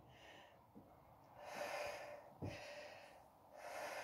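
A woman breathing hard while exercising: two long breaths about two seconds apart, with a soft thud between them.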